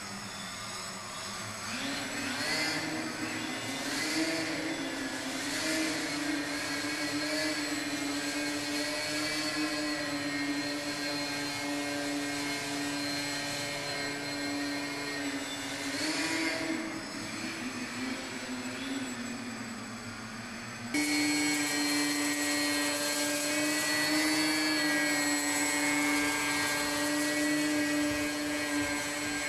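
Electric motor and propeller of a small indoor 3D foam RC plane, whining steadily and rising and falling in pitch with the throttle as it flies and hovers. About two-thirds through the whine jumps louder and steadier.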